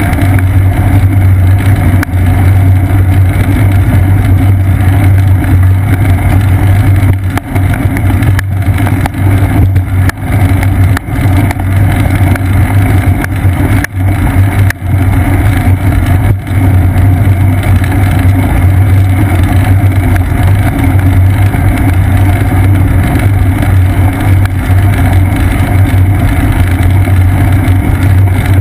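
Steady loud rumble of road and wind noise picked up by a seat-post-mounted GoPro Hero 2 on a bicycle riding over damp pavement, with a few brief knocks from bumps in the road.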